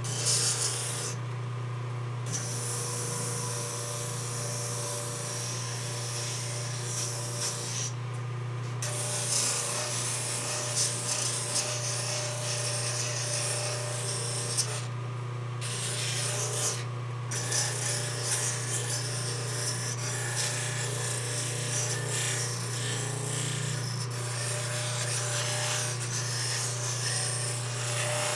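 Powered sander running with a steady motor hum while a knife handle is pressed against the abrasive, giving a continuous gritty grinding that stops briefly a few times as the piece is lifted off, shaping the handle.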